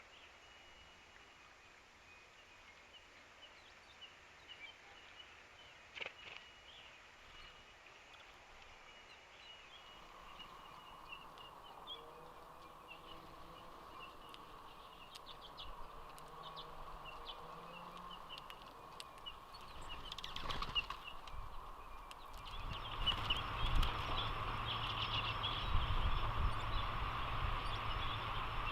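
Quiet outdoor ambience with faint, scattered bird chirps and a few soft clicks. The background changes abruptly twice, and a low steady hum comes in near the end.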